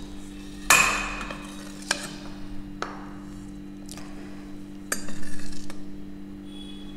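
A metal spoon clinking and scraping against a glass pickle jar and a frying pan while spice masala and mustard oil are spooned in: about five separate sharp clinks, the loudest a little under a second in, and a rougher scraping stretch about five seconds in. A steady low hum runs underneath.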